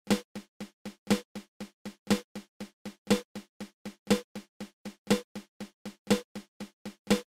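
Snare drum playing the flammed mill rudiment as steady sixteenth notes, about four strokes a second. Each beat opens with a loud accented flam, followed by three soft taps.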